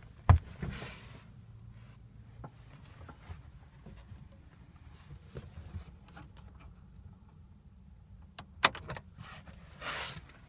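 Knocks and clicks from handling things inside a car cabin, over a steady low hum. There is a sharp knock right at the start and another near the end, followed by a brief rustle.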